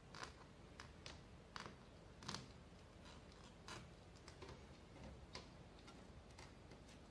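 Faint, irregular light ticks and clicks, a few each second, as thread is wound around the small nails of a string-art board and plucked taut against their heads.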